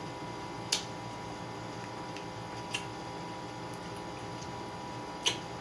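Mouth sounds of a person eating from a spoon: three short, sharp wet smacks about two seconds apart, over a steady background hum.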